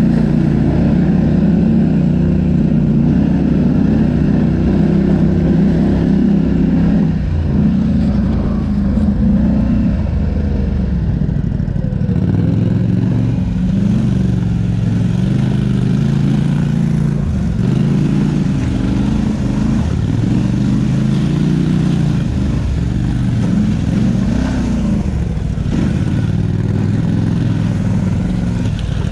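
ATV engine running while riding a trail, its pitch rising and falling as the throttle is worked.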